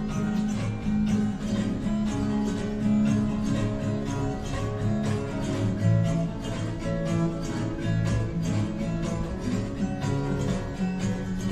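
Instrumental music: a strummed acoustic guitar playing a steady rhythm.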